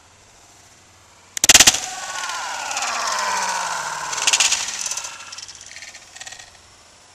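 A sledgehammer smashing into a Canon iP1500 inkjet printer: a loud crash about a second and a half in, followed by plastic parts rattling with a slowly falling pitch. A second crash comes a little past four seconds, and a smaller clatter near six seconds.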